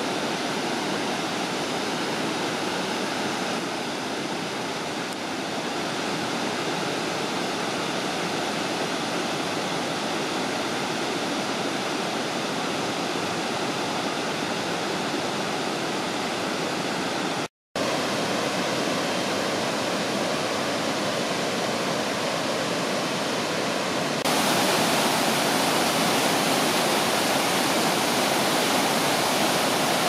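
Tiered travertine waterfall: a steady rush of water falling over many cascades. The sound cuts out for a split second a little past halfway and is louder over the last six seconds or so.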